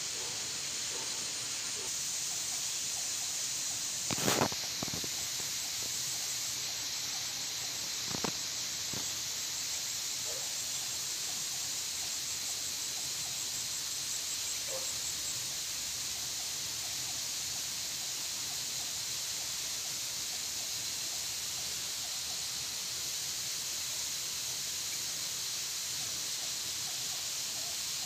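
Steady high-pitched hiss of an insect chorus in dense tropical undergrowth, with two brief knocks about four and eight seconds in.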